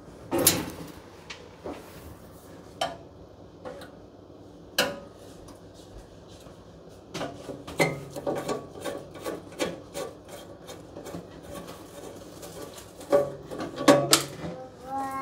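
Scattered sharp clicks and knocks, then a busier run of clicking, rattling and scraping about halfway through, as hands and tools work on metal parts at the back of a wood stove.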